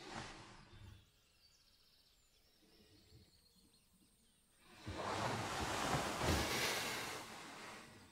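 Duvet and bedding rustling as a man shifts and turns over in bed: a short rustle at the start, then a longer rustle from about five seconds in that swells and dies away over about three seconds.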